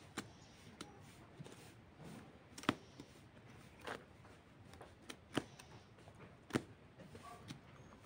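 Broiler chickens pecking at and tearing green grass: irregular sharp taps of beaks on the fodder and ground, with rustling of the grass between pecks.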